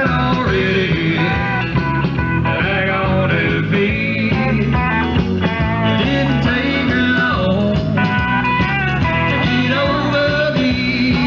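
Rock music with singing and a steady bass line.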